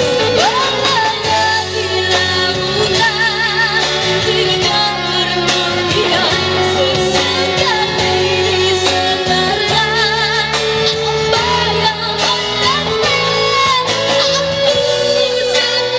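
Live band playing a pop song with a young girl singing lead into a microphone, backed by electric guitars, bass, acoustic guitar and drum kit; her long held notes waver with vibrato.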